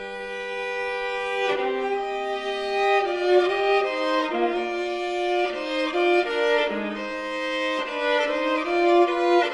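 Unaccompanied viola bowing a slow passacaglia, often sounding two or more notes at once, the notes changing about every half second.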